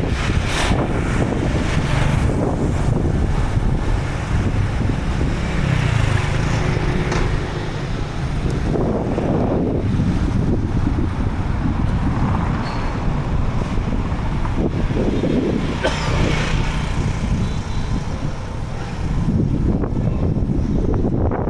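Street traffic: vehicles pass one after another, swelling and fading several times. Steady low wind noise buffets the microphone underneath.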